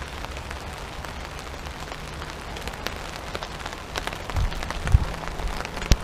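Steady rain falling on a tarp shelter, with many small drop ticks. Two dull knocks near the end as the camera is handled.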